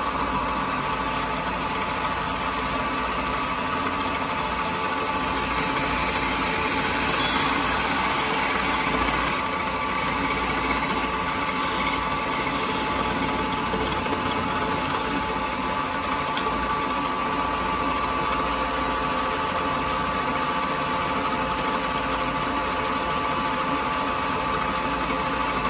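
Wood lathe running steadily with a constant motor hum while a turned wooden egg spins on it, first being sanded, then parted off at its stem with a parting tool. A brighter hiss of abrasive or tool on the spinning wood rises about six seconds in and eases after about nine seconds.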